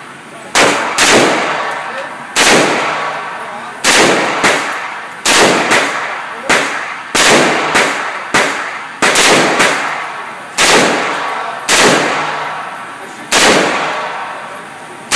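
AR-style carbine fired about eighteen times as single shots at an uneven pace, some in quick pairs, each shot followed by a long echo off the concrete range walls.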